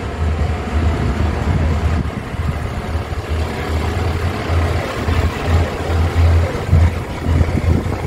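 A fire engine's diesel engine running at low revs as the truck creeps past at walking pace, a steady low rumble that swells and dips.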